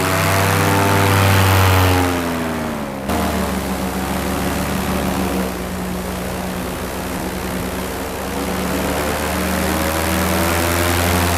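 Paramotor engine and propeller running in flight, the note rising and falling with the throttle, dropping abruptly about three seconds in and climbing again near the end.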